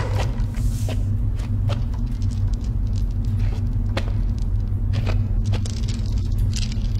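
A steady low rumbling drone of horror-film ambience, with scattered faint clicks and crackles over it.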